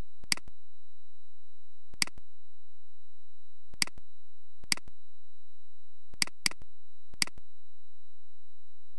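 Computer mouse button clicks, seven in all at irregular intervals, each a quick press-and-release double click sound, two of them close together about two-thirds of the way through. A faint steady high whine runs underneath.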